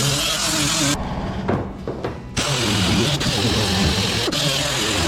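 Handheld power tool running, its pitch wavering with the load. The high hiss drops out for a moment about a second in.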